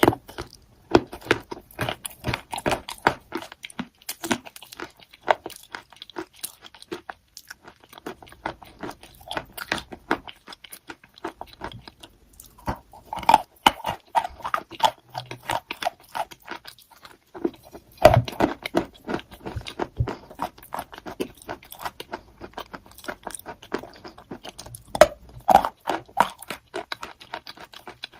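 Crunchy chalk being bitten and chewed: bursts of sharp, crackling crunches with short pauses between bites.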